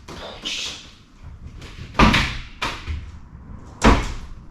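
Two loud bangs about two seconds apart, each a sharp knock with a short ring-out, after a brief scraping rustle about half a second in.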